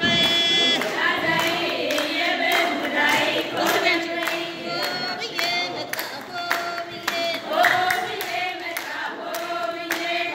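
A group of mostly women's voices singing a song together, with handclapping keeping a steady rhythm.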